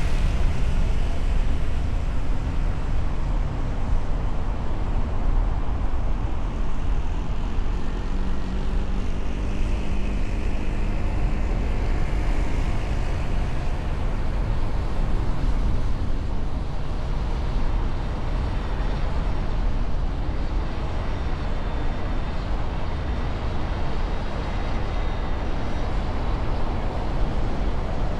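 Steady road and engine noise of a moving vehicle in traffic, a continuous low rumble with no single horn or event standing out.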